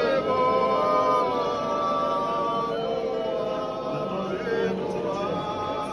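Church congregation chanting together in many voices, with long held notes that shift in pitch a few times.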